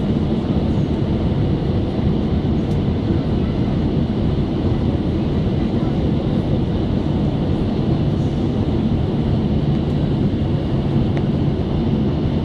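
Steady drone of a Boeing 767-300 heard from inside the cabin at a window seat over the wing: engine and airflow noise with a low hum, as the airliner descends toward landing.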